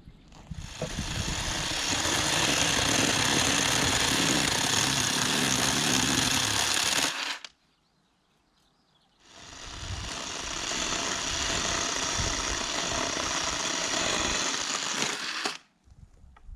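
Black & Decker cordless electric chainsaw running in two long runs of about six seconds each, with a short quiet gap between. Each run cuts off suddenly.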